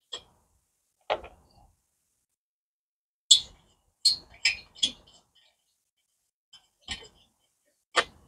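Short, sharp metallic clicks and clacks from a screwdriver fitted with a 10 mm socket being handled, about eight in irregular succession with a quick cluster of them three to five seconds in.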